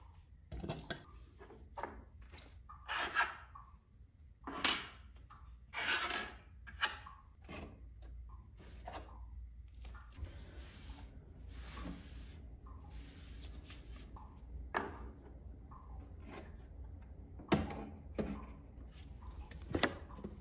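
Small decorative objects being handled and set down on a shelf: scattered light knocks and short rubbing scrapes, a second or more apart.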